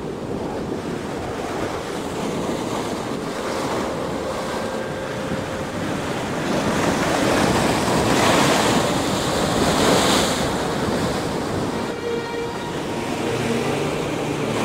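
Heavy ocean surf breaking and washing onto a beach, with wind on the microphone. The roar of the breakers swells louder for a few seconds about halfway through.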